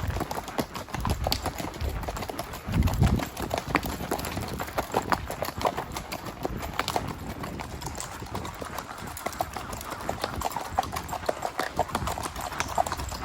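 Hoofbeats of a spotted saddle horse moving along in a steady run of clip-clops, with a low rumble about three seconds in.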